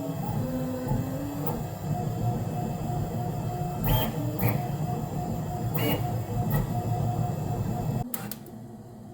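QiDi Q2 3D printer's stepper motors running: a whine that glides up and down in pitch for the first second and a half, then a steady high whine over a machine hum, with a few sharp clicks. The sound drops away abruptly about eight seconds in.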